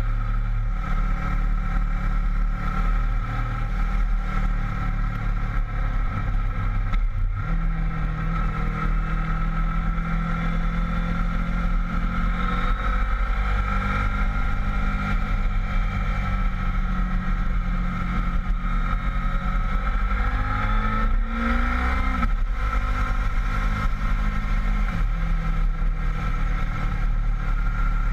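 Honda VFR800 V-Tec's V4 engine running under way, heard from on board the motorcycle over a steady rush of wind. The engine note steps up sharply about seven seconds in, and rises in a short rev a little after twenty seconds.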